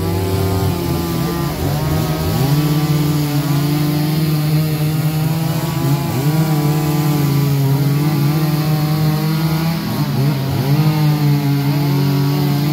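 Two-stroke chainsaw engines running and revving up and down repeatedly, more than one at once.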